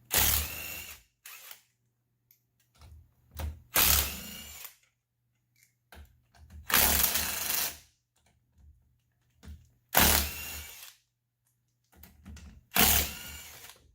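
Power tool run in five short bursts about three seconds apart, each with a brief blip just before it: lug nuts being run off a side-by-side's wheel.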